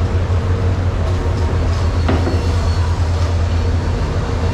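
Steady low rumble of background noise, with a faint knock about two seconds in.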